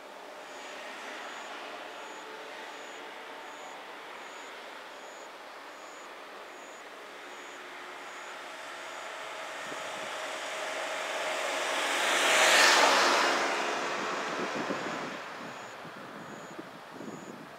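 A motor vehicle passes close by unseen, its engine and tyre noise swelling to a loud peak about thirteen seconds in and then fading. A steady engine hum runs underneath.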